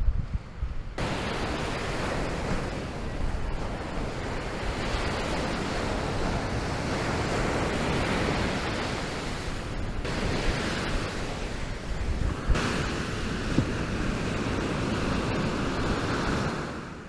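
Sea surf breaking on sand and rocks, a steady rush of waves, with wind buffeting the microphone.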